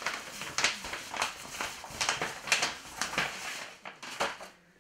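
Large sheets of paper plans rustling and crackling as they are handled and shuffled, in irregular strokes that thin out near the end.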